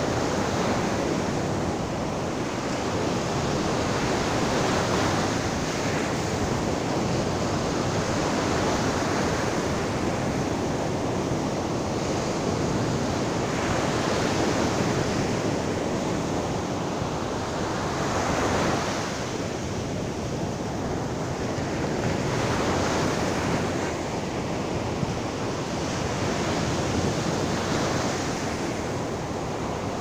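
Sea surf breaking and washing up a sandy beach: a continuous rushing wash that swells each time a wave comes in, every few seconds, the biggest swell a little past halfway.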